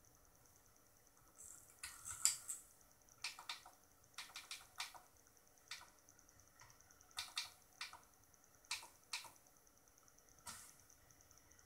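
Irregular clicks and taps from the controls of a Yamaha LS9 digital mixing console being pressed one after another, some in quick runs of two or three, over a faint steady high-pitched whine.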